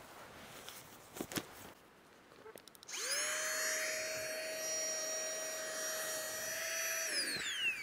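A small electric motor whirring: after a few faint clicks it spins up, runs at a steady high whine for about four seconds, then winds down with a falling pitch near the end.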